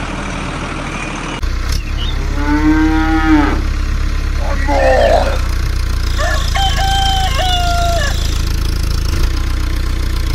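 Farm-animal sound effects over a steady low engine hum that starts about a second and a half in: a cow moos, then shorter bird calls follow, ending in a rooster crowing in a few flat held notes.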